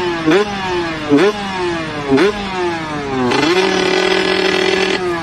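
Small engine revved in repeated blips, its pitch sagging after each before jumping up again. About three seconds in it is held at a steady high rev for nearly two seconds, then blipped again.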